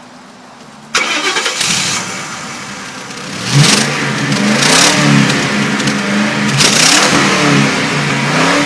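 Ford Crown Victoria Police Interceptor's 4.6-litre V8 revved hard several times, the exhaust rushing out of the tailpipe and blowing out the party noisemakers stuffed into it. It starts suddenly about a second in, and the pitch rises and falls with each rev. The noisemakers add no sound of their own.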